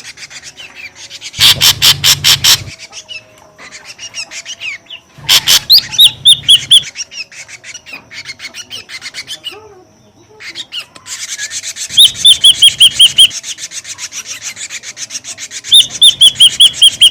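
Ashy drongo lure call: bursts of harsh, rasping notes repeated about six a second, each burst lasting about a second, with runs of short, quick high chirps between and over them.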